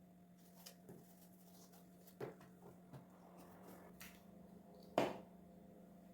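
Quiet handling sounds of small objects: light taps and clicks, with a sharper knock about two seconds in and the loudest one about five seconds in, over a steady low hum.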